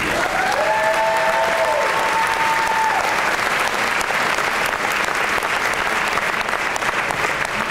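Audience applauding steadily in a large hall. For the first three seconds one long held cheer rises over the clapping, then levels off.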